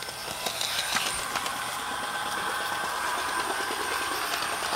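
Flywheel-equipped motor of an HO scale Canadian Pacific 4105 model diesel locomotive running on the track, a steady whir that grows louder over the first two seconds and then holds. A few light clicks in the first second or so.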